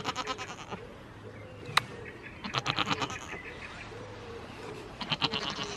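Goats bleating close up: three short bleats, near the start, about halfway and near the end, with a single sharp click in between.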